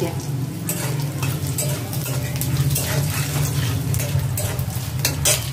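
Whole spices (small cardamom, cinnamon, cumin seeds) sizzling in hot oil and ghee in a metal kadai, with a metal spatula scraping and clinking against the pan at irregular moments as they are stirred, over a steady low hum.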